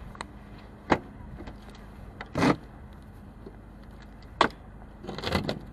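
A snow-covered car's boot lid and latch being worked open after frosts and snowfall had kept it from opening. Sharp knocks and clunks come about a second in and again at about four and a half seconds, with a short scraping burst between them and a cluster of knocks and rustling near the end.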